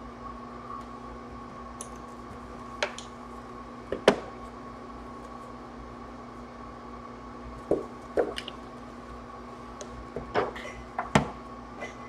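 Gloved hands handling a laptop and its charger cable on a desk: scattered light knocks and rubbing sounds, the loudest about four seconds in and a cluster near the end, over a steady electrical hum.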